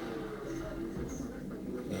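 Softer sleep breathing in the gap between loud snores, with a faint short high squeak about a second in.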